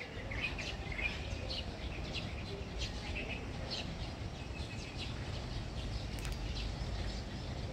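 Small birds chirping in short, repeated calls over a steady low background rumble.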